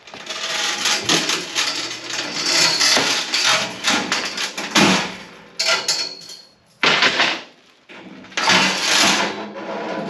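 Plastic packing wrap crinkling and rustling, with knocks and clanks of the steel mesh side panel being fitted into the forklift safety cage's frame. The crinkling is dense for about the first five seconds, then comes in separate short bursts.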